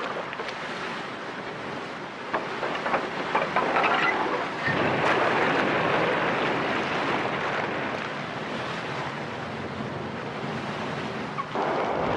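Steady rushing noise of wind and sea, with a few short crackles between about two and four seconds in. It grows louder about five seconds in.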